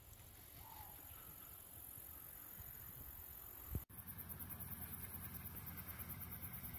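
Faint open-air evening ambience with no clear single source, broken by one sharp click and a brief drop-out a little before the middle.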